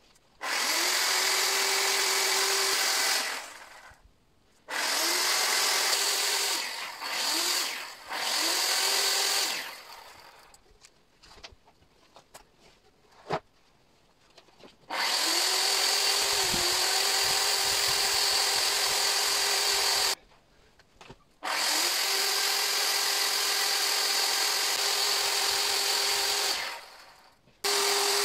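Makita chainsaw carving a log sculpture in about six bursts, from a second to several seconds long. Each burst speeds up quickly to a steady high whine, and there are near-quiet gaps between them.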